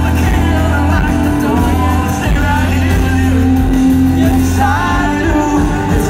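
Live band performing loud in a large hall: drums, bass and acoustic and electric guitars under a male lead vocal, with shouts from the crowd.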